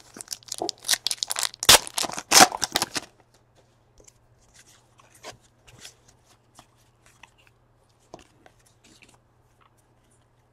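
A trading-card pack wrapper is torn open and crinkled for about three seconds. After that come faint, scattered ticks and rustles as the cards are leafed through.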